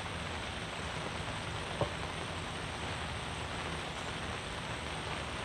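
Steady rain hiss on a fabric canopy, with a single short knock about two seconds in.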